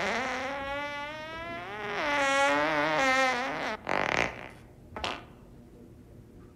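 A person farting: one long, drawn-out fart whose pitch wavers up and down for nearly four seconds. It is followed by two short puffs about a second apart.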